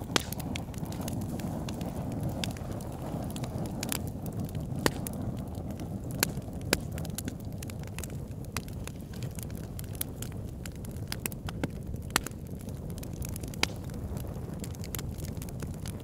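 Fire burning with a steady low rumble of flame, crackling throughout, with a few sharp louder pops scattered through.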